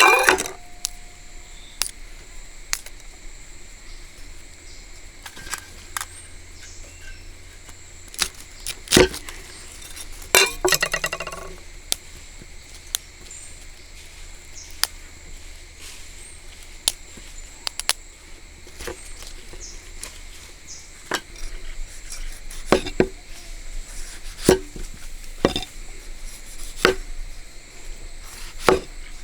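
Scattered knocks, chops and clinks of kitchen utensils and cookware during food preparation, with a short rapid rattle about ten seconds in.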